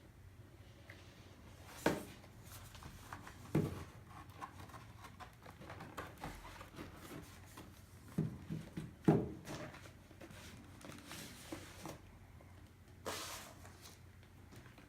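Hands handling a vinyl record and its packaging: a few sharp knocks and taps, about two seconds in, at three and a half seconds, and a cluster around eight to nine seconds, with soft handling noise between them. A brief sliding rustle comes about thirteen seconds in.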